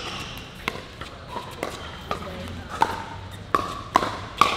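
Pickleball rally: about six sharp pops of composite paddles striking a hollow plastic pickleball, coming faster toward the end as the players trade quick volleys at the net.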